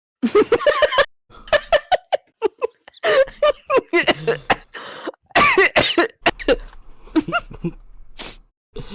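A person laughing hard in breathless, cough-like bursts, with sharp clicks between them.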